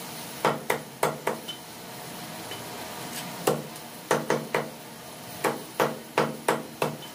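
Cleaver chopping through a skinned broiler chicken onto a wooden log chopping block: about a dozen sharp chops in quick clusters of two or three.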